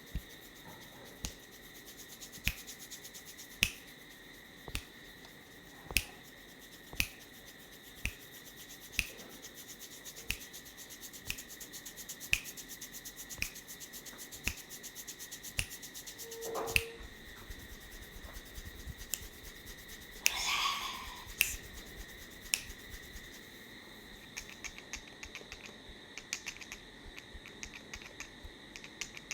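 Sharp snaps or clicks repeating about once a second, over a steady high-pitched tone; the clicks grow fainter and quicker near the end, with a brief rustling scrape just past the middle.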